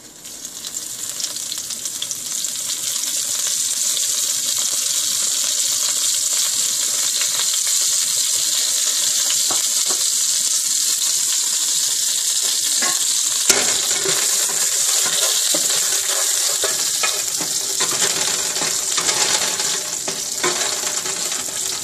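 Cumin seeds sizzling in hot oil in a frying pan, a steady high hiss that builds over the first few seconds as the seeds start to fry. Near the end a wooden spatula stirs them around the pan.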